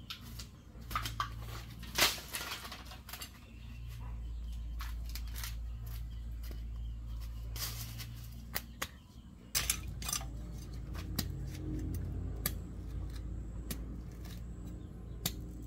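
Footsteps and rustling on dry leaf litter, with a few sharp knocks, then a knife blade repeatedly jabbing and scraping into hard dry soil as worms are dug for bait, a string of short sharp clicks.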